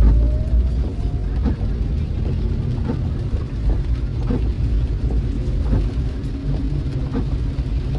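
Car driving: a steady low road and engine rumble, with scattered light knocks.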